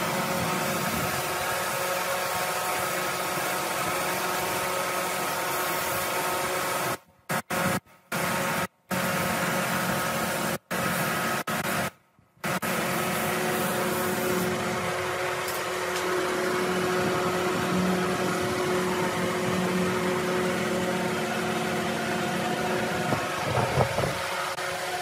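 Compressed-air spray gun hissing steadily as it sprays wood finish, with a steady hum under it. The hiss cuts out abruptly several times for a split second around the middle.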